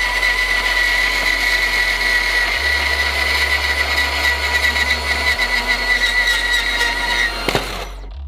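Milwaukee M18 Fuel 2729 cordless deep cut band saw running at its top speed setting, cutting through a metal tube with a steady high whine. Near the end the cut breaks through, a sharp knock sounds as the cut-off piece drops, and the saw stops.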